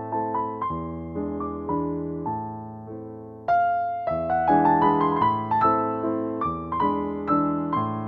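Background piano music: a gentle piece of struck notes, each fading away, with a louder phrase coming in about halfway through.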